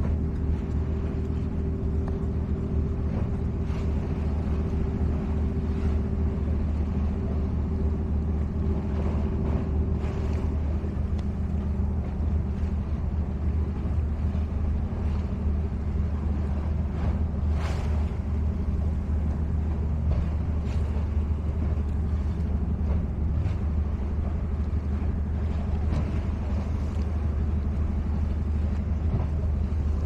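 A boat engine running: a steady low rumble with a droning hum over it that fades out about ten seconds in.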